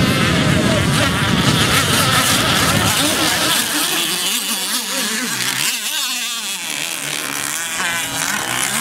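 Radio-controlled racing catamarans' small high-revving engines buzzing as the boats race, the pitch wavering up and down as they speed past and turn.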